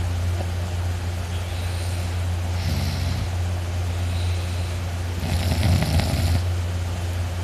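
A man snoring loudly in his sleep, two snores about two and a half seconds apart, the second one bigger, over a steady low hum.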